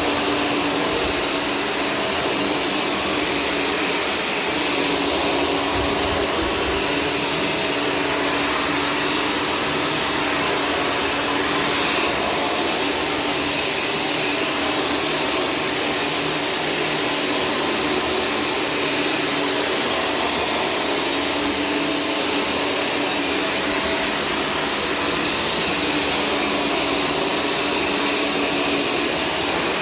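Shark Stratos vacuum cleaner running steadily: an even rush of air under a constant motor whine, with no change in pitch or level.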